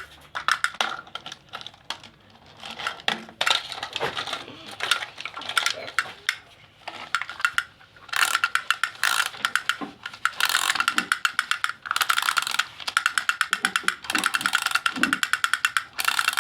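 A plastic toy vehicle's gear mechanism clicking rapidly in stretches that start and stop, the clicking denser and steadier in the second half.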